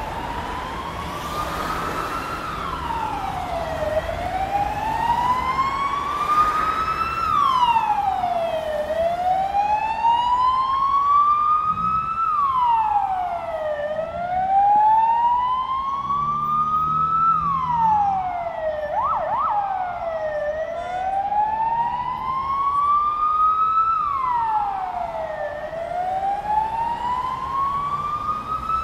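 Emergency vehicle siren wailing, its pitch climbing slowly and then dropping more quickly, over and over every three to four seconds, above the hum of passing city traffic.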